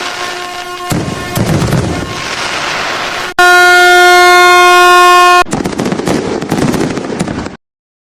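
Fireworks crackling and popping, overlaid by a steady air horn tone. The horn is faint over the first second, then blasts loud and level for about two seconds in the middle. All sound stops abruptly near the end.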